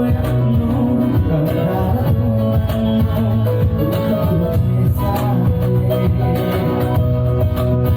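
Loud music played through a PA sound system with subwoofers, with a strong steady bass line and regular percussion hits.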